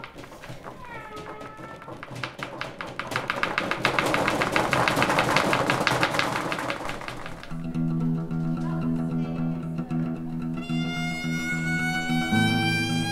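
Experimental sound-design soundtrack. It opens with short falling pitched glides, then a dense build of rapid clicks and rattles that peaks around the middle. From about two-thirds of the way through comes a sustained low drone, with a slowly rising high tone joining it near the end.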